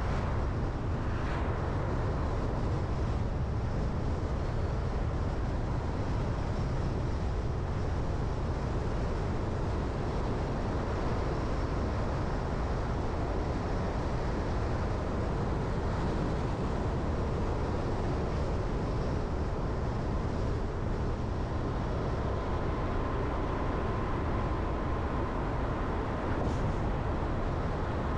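Steady engine and road noise of a Jeep Renegade being driven, with a faint high whine joining in over the last few seconds.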